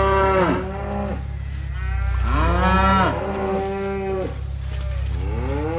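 Cattle mooing: one long moo trails off about half a second in, another long moo runs from about two seconds to four, and a third begins near the end. A steady low rumble sits underneath.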